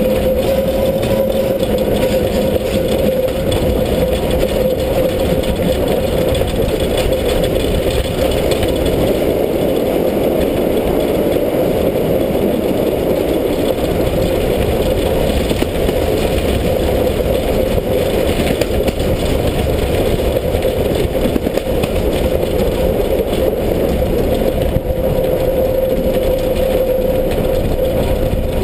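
Steam locomotive S 33-037 running along the line, heard close up from its side: a loud, steady rush of running gear, wheels on rail and air, with a steady mid-pitched hum throughout.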